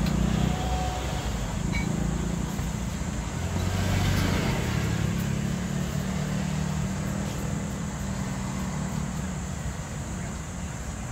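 Road traffic: a motor vehicle's engine hums steadily, and a vehicle passes with a rise in noise about four seconds in that slowly fades.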